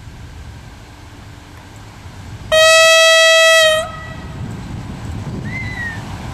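Ex-DR V100.4 (DB class 201) diesel-hydraulic locomotive sounding its horn: one loud, single-pitched blast of just over a second, starting and stopping abruptly. Under it runs the low rumble of the locomotive's engine as the train approaches.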